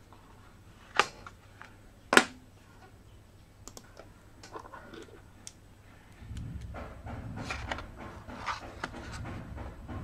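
Handling noise of an SSD and its laptop drive caddy. Two sharp clacks come about one and two seconds in, the second the loudest. From about six seconds in there are small clicks and low rubbing scrapes as a small screwdriver works at the caddy's screw.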